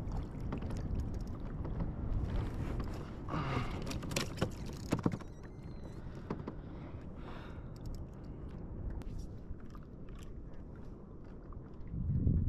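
Low, steady rumble of wind on the microphone out on a kayak at sea, with a cluster of sharp knocks and clicks from about three to five seconds in.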